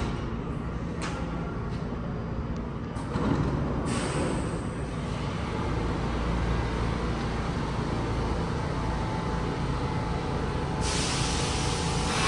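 New York City Subway A train coming to a stop at an underground platform and standing there, a steady low rumble and hum with a sudden rise in level about three seconds in. A hiss of air starts near the end.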